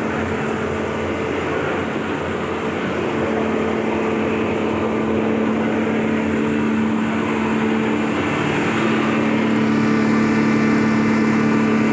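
Impact pulveriser grinder machine running steadily while grinding almond shells: a held motor hum over a dense grinding rush that slowly grows a little louder.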